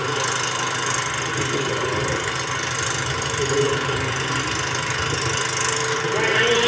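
Steady engine noise at a stock-car track, a low running hum under a constant high hiss.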